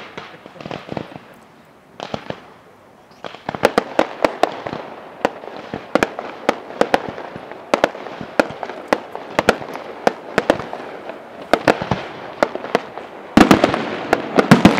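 Aerial fireworks bursting: a run of sharp bangs and crackles that thins out briefly about two seconds in, then picks up again, with a loud dense volley near the end.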